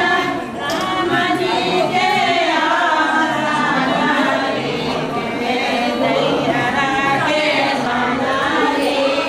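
Several voices singing together, a choir-like group song.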